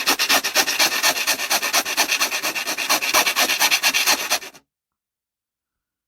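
Metal of a PC case being filed or rasped in quick, rapid scraping strokes, the work that throws off iron filings; it stops abruptly about four and a half seconds in.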